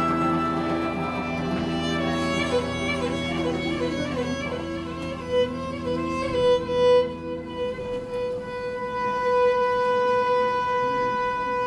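Fiddle and Brandoni piano accordion playing a Bulgarian folk tune: an ornamented fiddle melody over held accordion chords. The chords drop out about two-thirds of the way through, leaving the fiddle holding one long note.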